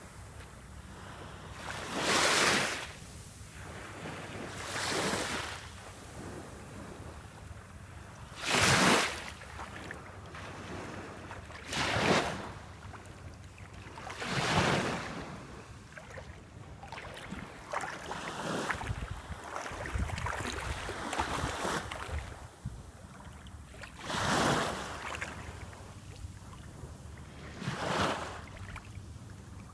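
Small waves lapping and washing on the shore, a louder wash every few seconds, with some wind rumbling on the microphone.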